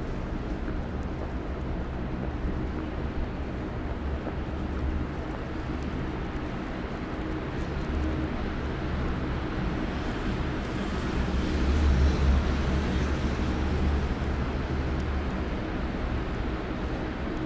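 City street traffic: a steady low engine hum with a vehicle passing, swelling to its loudest about twelve seconds in and fading again.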